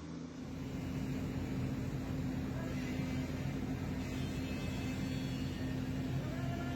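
Heavy machinery running steadily, a constant engine hum with a held low tone over rumble.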